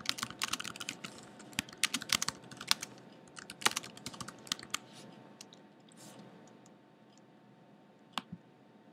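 Typing on a computer keyboard: quick runs of key clicks that stop about five seconds in. Near the end come two clicks close together as the Done button is clicked.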